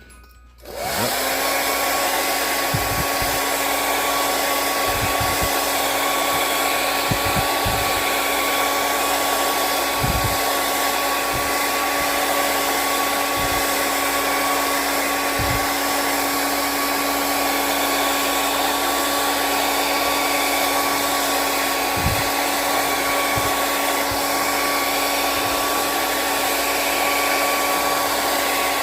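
Handheld hair dryer switched on about a second in, then running steadily on full blow with an even rush of air and a constant motor hum.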